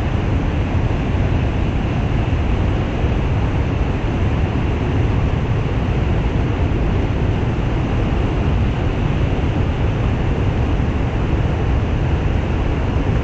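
Steady, loud rushing of water after heavy rain, an even noise that holds unchanged throughout.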